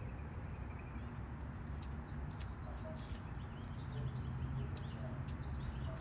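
Low, steady rumble of car traffic with small birds chirping now and then.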